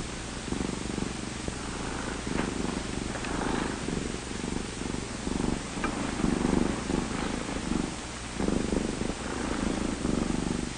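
Domestic cat purring in rhythmic swells, about one a second, as it is stroked. The purr cuts off suddenly at the end.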